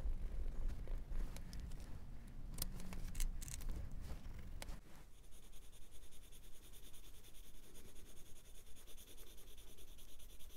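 Coloured pencil scratching over watercolour paper, with a few sharp clicks and taps around three seconds in.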